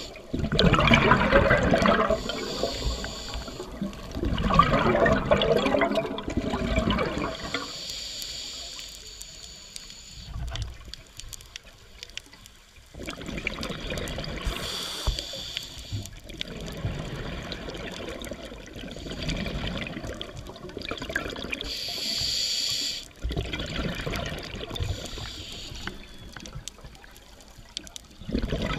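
Scuba diver breathing through a regulator underwater: hissing inhalations alternating with gushing bursts of exhaled bubbles, a breath every several seconds. The loudest bubble bursts come in the first seven seconds.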